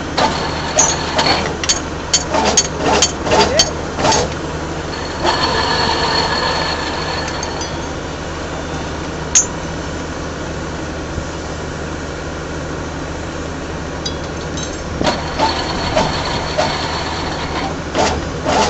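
Electric rebar bending machine running with a steady low hum. Sharp metal clinks and knocks of steel bar at the start and again near the end, and a high metallic squeal lasting about two seconds that comes twice.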